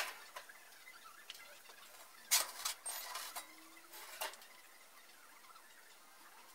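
A single sharp click at the start, then a cluster of short metallic clinks and knocks between about two and four seconds in.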